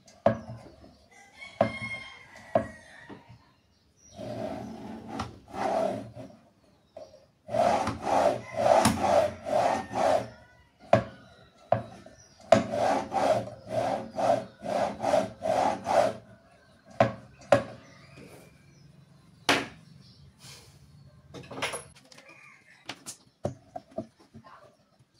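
Homemade wooden grinder-saw jig worked back and forth, wood rubbing on wood in rhythmic strokes a little over two a second, in runs of a few seconds. Later come scattered knocks of wood and parts being handled and set down. A rooster crows faintly near the start.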